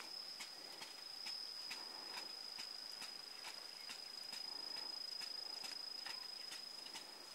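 Insects buzzing: a steady, high-pitched insect drone with faint regular ticks about two or three times a second.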